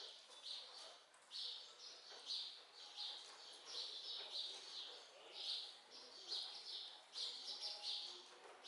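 A bird chirping over and over, in short high calls coming one or two times a second.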